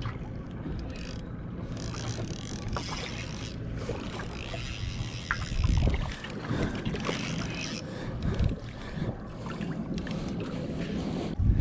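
Wind buffeting the microphone over the steady low rumble of a boat at sea, swelling in gusts a few times, with a few small clicks.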